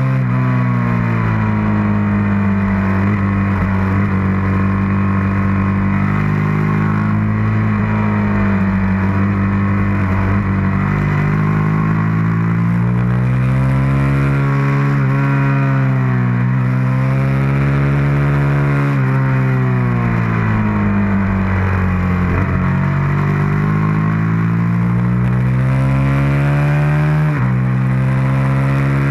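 Suzuki SV650's V-twin engine at track pace, heard from on board: its pitch climbs and falls again and again through the corners, with a sudden drop near the end, under a steady rush of wind.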